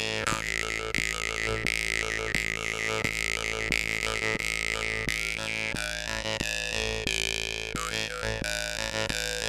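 Stainless-steel "Spiral" jew's harp (vargan) with a long 90 mm reed, played with quick, regular finger plucks: a steady buzzing drone with a wavering overtone melody shaped by the mouth.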